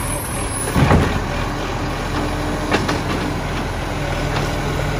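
Iveco Acco side-loader garbage truck running at idle while its automated arm grabs a wheelie bin and lifts it, with a steady hum from the lifting hydraulics. A loud burst about a second in and a sharp clack a little before the three-second mark.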